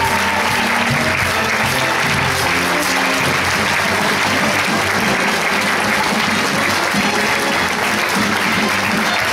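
A theatre audience applauding steadily over upbeat curtain-call music.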